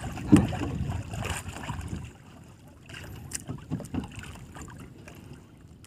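Small wooden fishing boat (bangka) drifting, with water sloshing against the hull and scattered light knocks, louder in the first two seconds; no engine is running.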